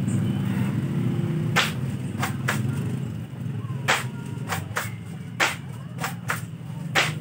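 Spring-powered airsoft pump shotgun (M690 replica of a Mossberg 590A1) being racked and fired: about nine sharp clacks and snaps, some in quick pairs, over a steady low background sound.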